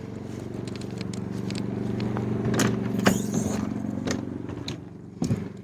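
Genmax GM3200i inverter generator running steadily, with a scatter of sharp clicks and clatters over its hum.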